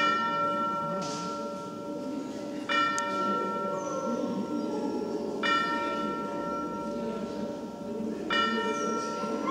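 A bell tone struck four times, about every 2.8 seconds, each stroke ringing on until the next: the accompaniment music of a dog-dance routine played over loudspeakers.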